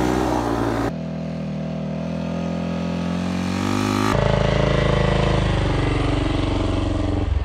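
Yamaha YZ250F dirt bike's four-stroke single-cylinder engine running under load while towing a snowboarder, its pitch climbing as it accelerates and easing off near the end. The sound changes abruptly about a second in and again about four seconds in.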